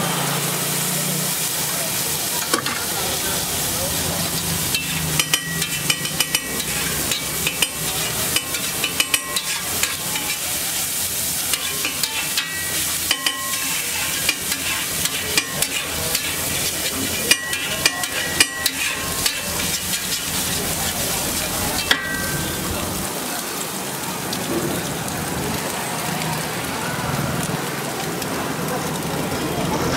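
Eggs and chopped vegetables sizzling on a large flat metal griddle, with a long metal spatula scraping and striking the griddle plate. The spatula gives many sharp clicks and clinks through the middle, which stop a little over twenty seconds in, leaving the sizzle.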